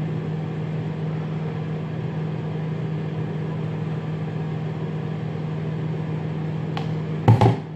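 A steady low hum, one unchanging pitch with overtones, runs under the scene, the kind made by a running kitchen appliance or fan motor. A short clatter of knocks comes about seven seconds in.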